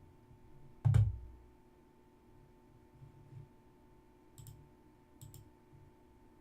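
Computer mouse clicks at a desk: one sharp, loud click with a low thump about a second in, then faint double clicks around the middle, over a steady low electrical hum.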